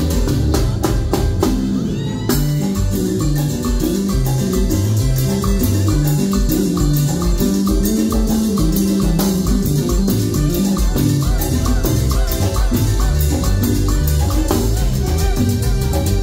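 Live Latin dance band playing an up-tempo number with a steady beat: saxophones, electric guitar, drum kit and congas, with a metal güira scraper scratching out the rhythm.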